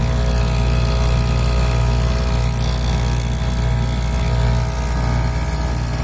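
Copeland scroll compressor of an old Heil heat pump running steadily in heat mode: a loud, constant low hum with a steady whine of overtones above it. It sounds a little rough, which the technician takes to mean the compressor is failing and probably not long for this world.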